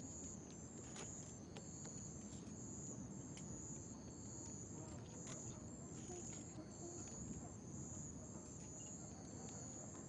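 Night insects, crickets or katydids, calling in a high, even pulse about three times every two seconds, over a faint steady low hum of a distant city.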